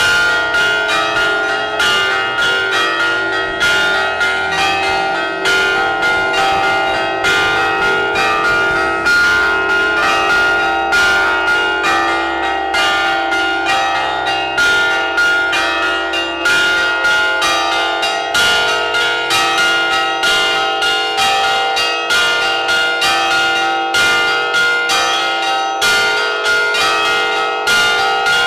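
Several Greek Orthodox church bells hanging fixed in a belfry, rung by ropes pulled on their clappers. They ring a continuous rapid peal, the strikes coming several a second and overlapping as each bell rings on.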